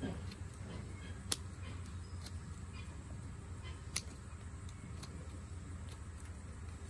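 Hand-held hoof trimmers snipping a goat's hoof wall: a few short sharp clicks, the loudest about a second and a half in and another about four seconds in, over a low steady hum.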